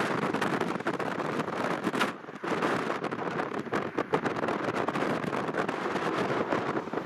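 Strong wind buffeting the microphone: a dense rushing noise full of crackling gusts, easing briefly about two seconds in.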